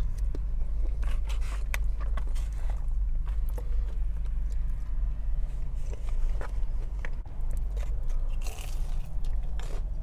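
Close-miked chewing of fried rice and chicken, with a plastic fork scraping in the foam takeout container and, near the end, crunchy bites of a fried egg roll, over a steady low hum.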